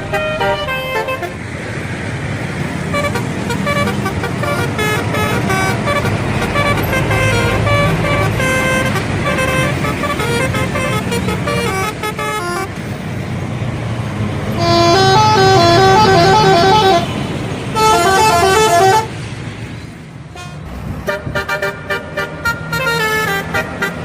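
Bus 'telolet' musical horn playing quick stepped melodies one after another, loudest about fifteen to nineteen seconds in, over the low rumble of the bus.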